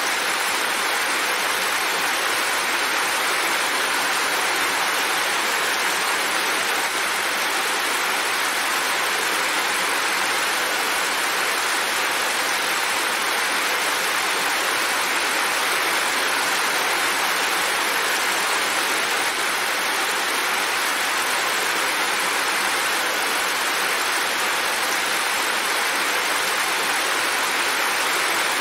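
Heavy rain falling steadily, an even hiss that holds the same level throughout.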